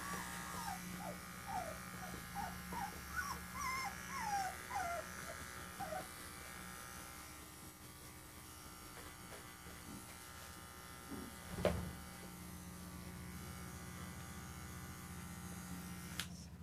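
Cordless electric pet clipper buzzing steadily while trimming a three-week-old puppy, which squeaks in short falling whimpers about twice a second for the first six seconds. A single knock sounds about halfway through, and the clipper is switched off just before the end.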